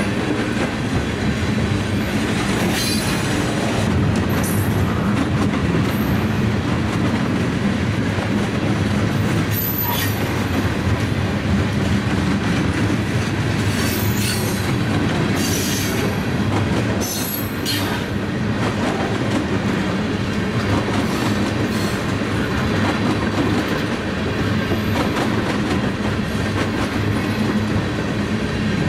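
Loaded freight cars rolling past at slow speed, steel wheels clattering over the rail joints in a steady rumble, with several brief high wheel squeals.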